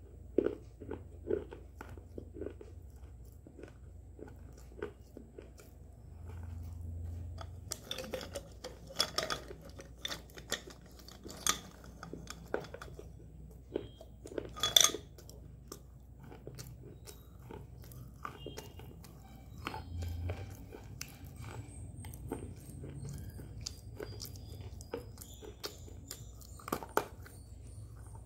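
A person biting and crunching hard, brittle white sticks close to the microphone: sharp snaps as pieces break off, the loudest bunched between about 8 and 15 seconds in, with softer chewing between bites.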